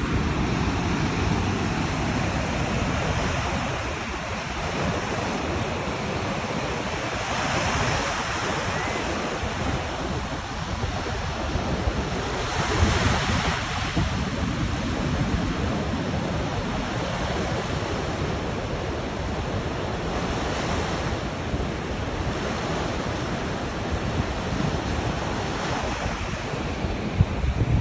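Small sea waves breaking and washing up a sand beach: a steady surf hiss that swells louder every several seconds as a wave runs in, with wind buffeting the microphone.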